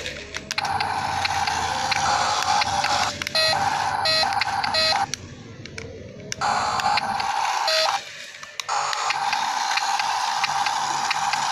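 Electronic sound effects from a mini RC truck's built-in sound module, played through its tiny speaker with a thin, buzzy tone. They cut out and restart several times, with a longer pause about five seconds in.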